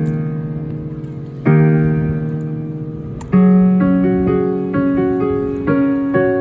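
Background piano music: sustained chords struck about every two seconds and left to die away, then a quicker run of notes in the last couple of seconds.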